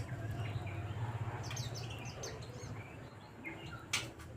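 White-eyes (pleci) calling: short high chirps, several in quick succession around the middle, over a steady low hum. A sharp click sounds near the end.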